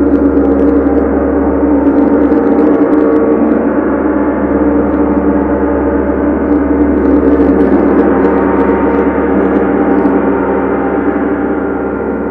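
Large tam-tam gong played continuously with soft mallets: a loud, sustained wash of many overlapping tones that eases off slightly near the end.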